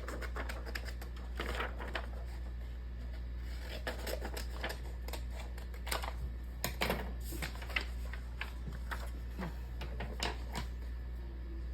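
Scissors snipping through printed paper, cutting out a label in a quick, irregular series of short crisp snips.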